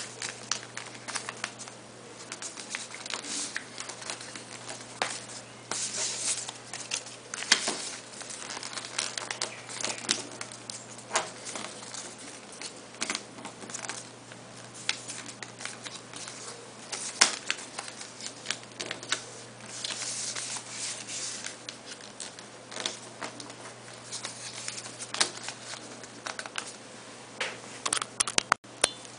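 A sheet of paper being folded and creased by hand: irregular rustles, with short sharp scrapes as fingers run along the folds.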